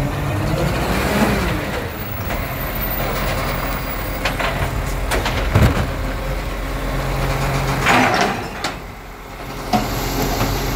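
Side-loader garbage truck's diesel engine running while its hydraulic arm lifts a wheelie bin and tips it into the hopper, with pitch rising and falling as the arm works. Several knocks from the arm and bin, and a loud clatter about eight seconds in as the bin is emptied.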